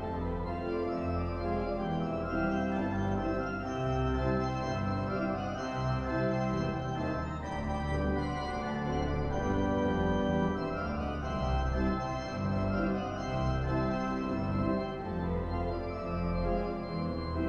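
Midmer-Losh pipe organ playing sustained chords over a deep pedal bass, the harmony changing every second or two.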